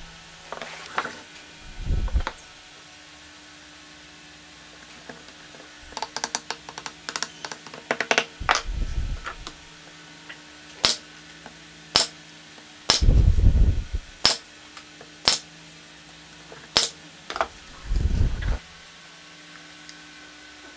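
A nail gun firing into the pine lamp box, about five sharp shots spaced roughly a second apart, mixed with heavier thumps of the wooden box being set down and handled on the bench.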